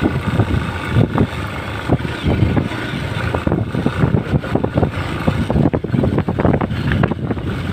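Hero XPulse 200 single-cylinder motorcycle engine running while riding over a rough off-road track. The sound is uneven, with frequent irregular knocks and wind buffeting the microphone.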